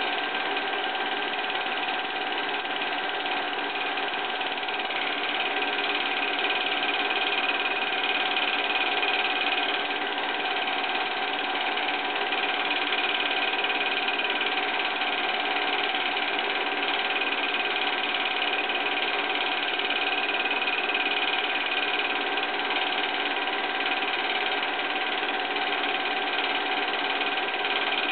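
Movie projector running, a steady mechanical whir with several constant tones that never change.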